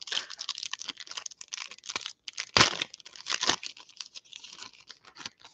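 Foil trading-card pack being torn open and crinkled in the hands: a run of crackling rustles, with the loudest rips about two and a half and three and a half seconds in.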